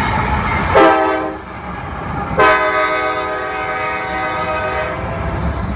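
Diesel freight locomotive's multi-chime air horn: a short blast about a second in, then a long blast of about two and a half seconds, over the steady low rumble of passing diesel locomotives.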